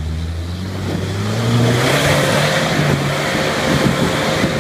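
Toyota Land Cruiser LJ's diesel engine working hard under load as the 4x4 climbs a steep muddy rut; the revs rise about a second in and then hold high, with a rising rush of tyre and mud noise.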